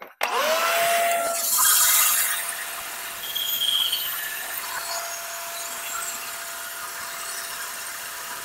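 Bandsaw switched on a moment in, its motor quickly winding up to a steady whine, then cutting a wooden board with a loud hiss that is strongest as the blade first bites. It runs really loud on a freshly changed blade.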